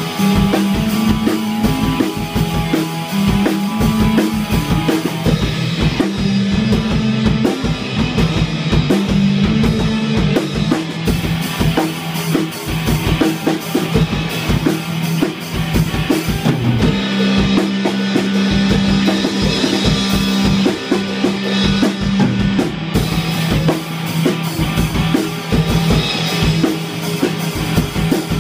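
A live rock jam: two electric guitars played through amplifiers over a Yamaha drum kit, with a steady beat of kick drum and cymbals and low guitar notes held for a second or two at a time.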